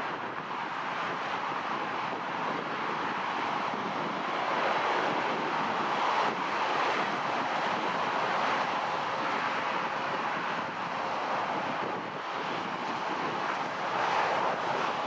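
Boeing 787-9 airliner's jet engines: a steady rushing roar that swells a little about midway and again near the end, with wind noise on the microphone.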